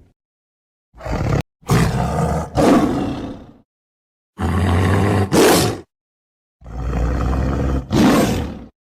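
Tiger roaring: about five loud, rough roars in a row, each starting and stopping abruptly, separated by short gaps of complete silence.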